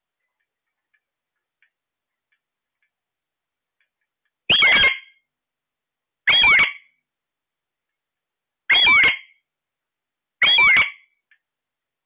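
Caged parakeet giving four loud, shrill squawks, each about half a second long and roughly two seconds apart, starting about four seconds in.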